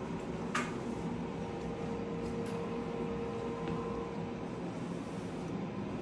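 Veterinary dental machine running while a cat's teeth are scaled: a steady hum with a held mid-pitched tone that cuts off about four and a half seconds in. A single short click sounds just after the start.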